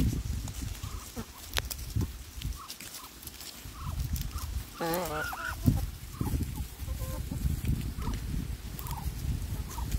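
Soft, short calls repeated every second or so from foraging poultry, a Muscovy duck and a black hen, with a brief warbling trill about five seconds in. A low rumble runs underneath.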